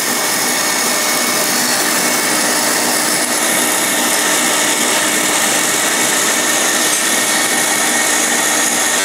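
Electric stand mixer running at steady speed, its wire whisk beating whipping cream in a stainless steel bowl: a loud, even motor whir.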